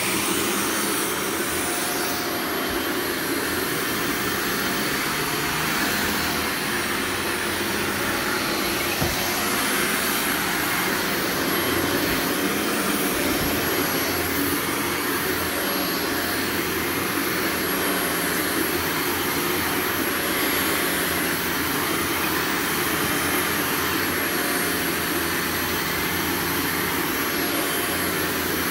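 Vacuum cleaner switching on suddenly and then running steadily, a loud even rush of motor and air with no change in pitch.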